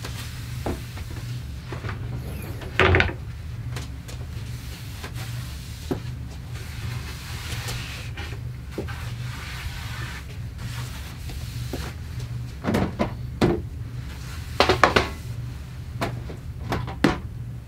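Overhead kitchen cabinet doors knocking and clacking as they are opened, shut and handled: one knock about three seconds in and a cluster of them in the last five seconds, over a steady low hum.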